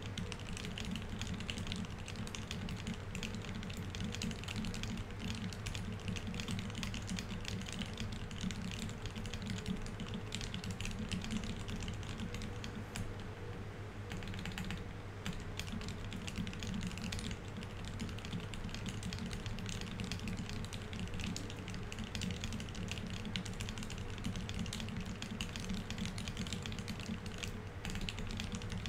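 Rapid, continuous touch-typing on a Keycult No. 1/65 mechanical keyboard with Tealios V2 67g linear switches lubed with 205g0, C3 stabilizers and GMK Oblivion keycaps: a dense, unbroken stream of keystrokes at speed-test pace, briefly a little lighter about halfway through.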